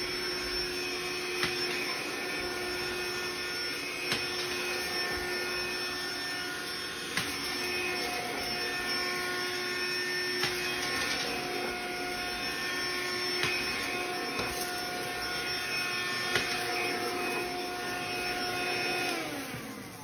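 SOWTECH cordless handheld vacuum cleaner running as it is pushed over carpet: a steady, high motor whine with a few sharp clicks. Near the end it is switched off and winds down, its pitch falling away.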